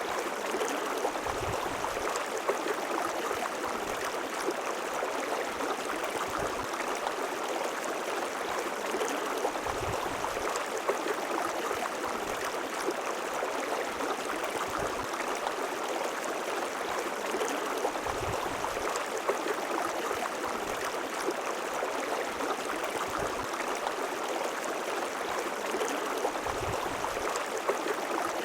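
River water flowing steadily with an even rushing sound, broken now and then by a brief low rumble.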